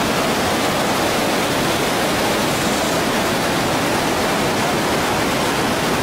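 Cascade waterfall rushing over a sloping rock bed: a steady, loud rush of white water.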